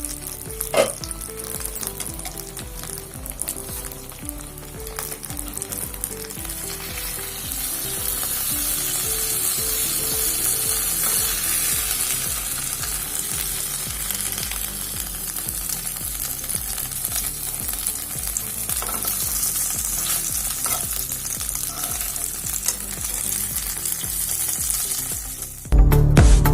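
Pomfret frying in hot oil in a pan: a steady sizzle that swells a few seconds in, with a short knock about a second in. Faint background music runs underneath, and louder music cuts in just before the end.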